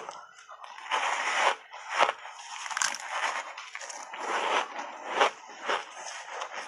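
Refrozen block ice coated in matcha powder bitten right at the start, then crunching and grinding between the teeth in irregular bursts of chewing, close-miked.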